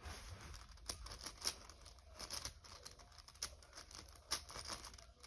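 Plastic layers of a YuXin Cloud 5x5 speed cube clicking and clacking as it is turned by hand, a quick, irregular run of faint clicks.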